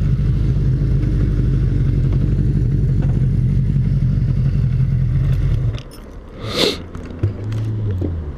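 1991 Opel Astra's 1.6-litre engine running steadily, then cut off abruptly about two-thirds of the way through. A short rustle, a click and a brief low hum follow.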